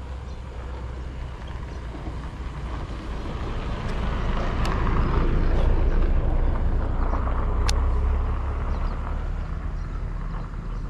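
A motor vehicle passing by, its low engine rumble swelling to a peak partway through and then fading. Two sharp clicks stand out near the middle.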